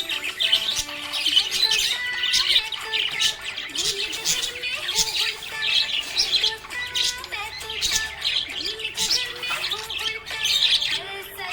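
Small pet parrots chirping and squawking continuously in dense, high bursts, over background music with held notes.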